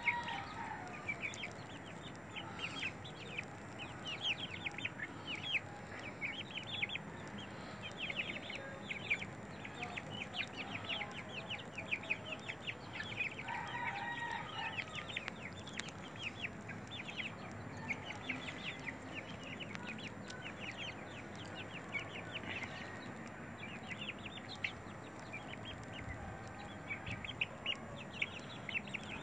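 Several young chickens clucking and peeping as they feed on a corn cob, a constant chatter of short, high, quick calls with a few louder clucks.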